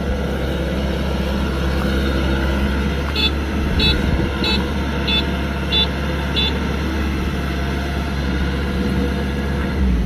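Kubota DC-105X combine harvester's diesel engine running steadily as the machine tracks through the field. Between about three and six and a half seconds in, a high electronic beeper sounds six times, about two-thirds of a second apart.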